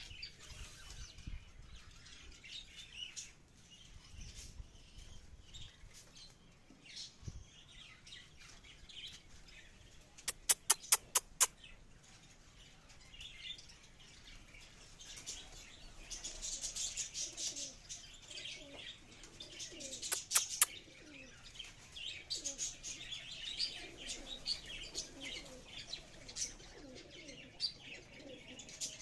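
A flock of pigeons flapping and calling as they fly in and settle, with chirps and, in the second half, low cooing. A quick run of about six sharp claps comes about a third of the way in, and three more near the middle.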